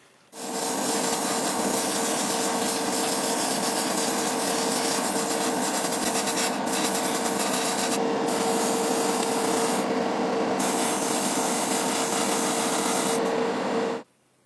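Small electric abrasive tool sanding or grinding a surface during rust and paint removal. It makes a steady rasp over a constant motor hum, starting suddenly about half a second in and cutting off shortly before the end.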